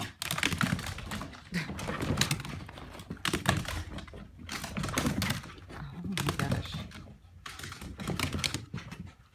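Dog claws clicking and scrabbling on a hardwood floor as two dogs wrestle in play, in quick irregular bursts.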